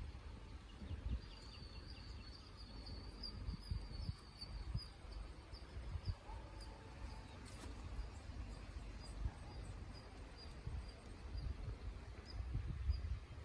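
Faint rural outdoor ambience: low wind rumble on the microphone, with a run of short high chirps from a small animal, about three a second at first and sparser later.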